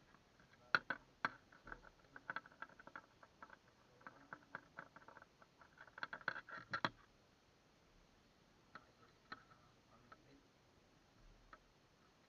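Quick, irregular small clicks and taps, dense for the first seven seconds or so, then only a few scattered ones.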